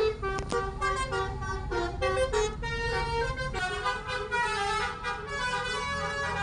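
Indonesian 'telolet' bus horn: a multi-tone musical horn playing a quick tune of stepping notes, with the bus engine running low underneath.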